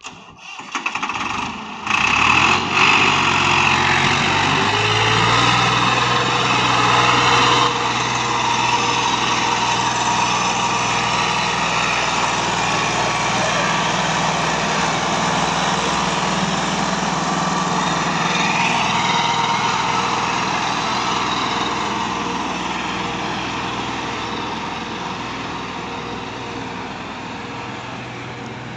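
Massey Ferguson 260 tractor's three-cylinder diesel engine working hard under load, pulling a heavily loaded sand trolley through soft sand. The revs climb a few seconds in and then hold steady, and the sound fades toward the end as the tractor moves away.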